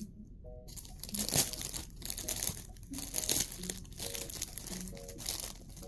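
Paper and plastic packaging crinkling and rustling in uneven bursts as a parcel is unwrapped by hand.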